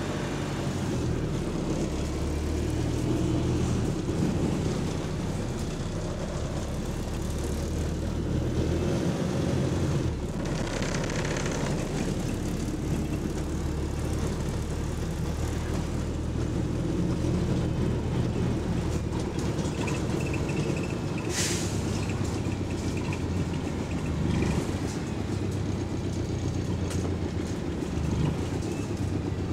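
Inside a moving bus: the engine drones steadily under road noise while loose interior parts rattle along with it. A brief hiss comes about two-thirds of the way in.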